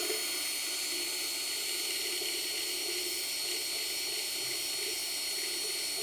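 Power drill running steadily with an 8 mm bit, boring a hole through a carbon-fibre hydrofoil wing: an even whirring hiss with a faint high whine.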